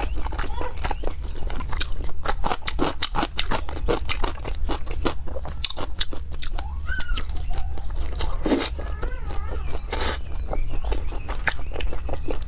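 Close-miked wet chewing and lip-smacking of soft, fatty braised pork belly: a dense run of small moist clicks, with a couple of louder smacks later on, over a low steady hum.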